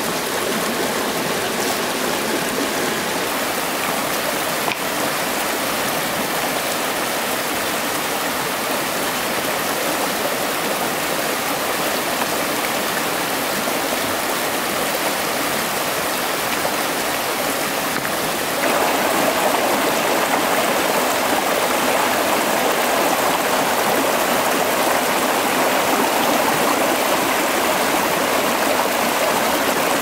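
Shallow rocky stream rushing and splashing over stones in a steady flow; the water gets louder a little past halfway through.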